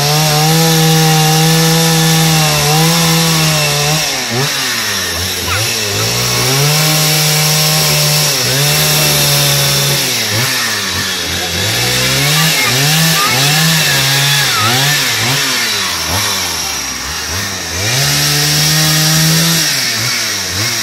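Two-stroke chainsaw cutting into a wood stump, its throttle held wide open for runs of a few seconds and let off between them, with a series of quick blips of the throttle in the middle.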